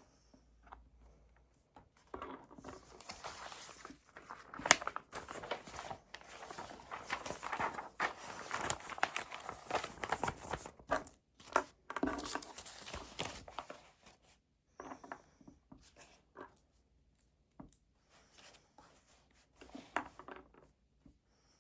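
Paper and desk handling: a dense stretch of rustling and scratching with many small taps, then scattered short handling noises with quiet gaps near the end.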